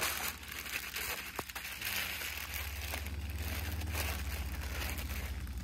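Portable propane cooktop burner running on high under a pan of vegetable oil: a steady low rumble of flame with light crackling.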